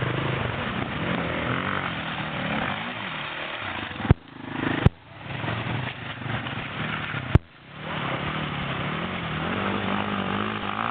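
Dirt bike engines revving and easing off, the pitch rising and falling. Three sharp clicks cut in about four, five and seven seconds in, each followed by a brief dip in the sound.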